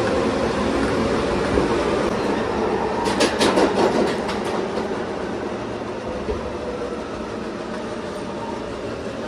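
Bombardier R143 subway car running on the track: steady noise of wheels and propulsion, with a quick run of clicks from wheels over rail joints about three seconds in, a little quieter afterwards.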